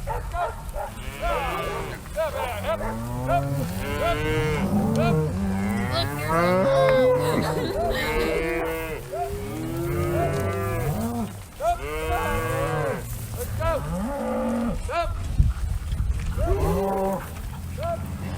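A herd of cattle mooing, many overlapping calls one after another, some rising and falling in pitch, with no let-up.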